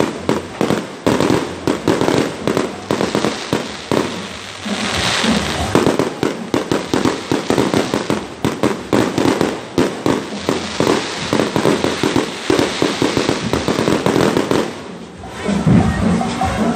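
Aerial fireworks display: a rapid, dense run of bangs and crackling from shells bursting overhead, thinning briefly about fifteen seconds in before picking up again.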